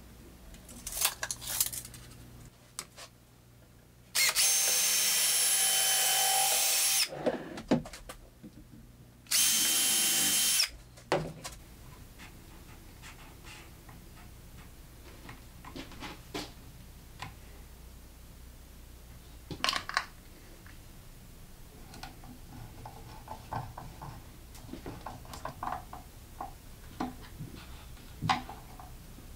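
Cordless drill running at steady speed in two bursts, one of about three seconds and a shorter one of about a second and a half, with a steady whine. Light clicks and taps of handling come before and after.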